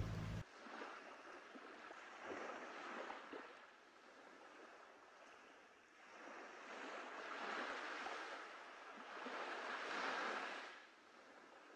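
Small waves washing onto a sandy shore, the surf swelling and fading about three times. A low rumble cuts off suddenly just after the start.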